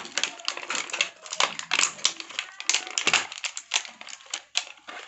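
Plastic toy packaging crinkling and crackling as it is pulled open: a dense, irregular run of sharp clicks and crackles.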